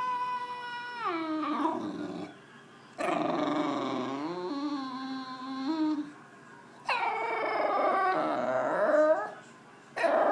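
English bulldog whining and howling in three long, wavering drawn-out calls with short pauses between them, the pitch sliding down at the end of each: frustrated begging, the noise the breed's fans liken to Chewbacca.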